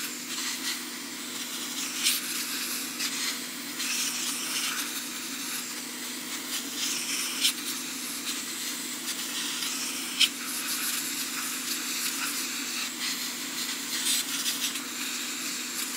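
Hot-air rework station's handpiece blowing a steady hiss of hot air over a circuit board, with a low steady fan hum underneath and a few small clicks; the board is being preheated before desoldering.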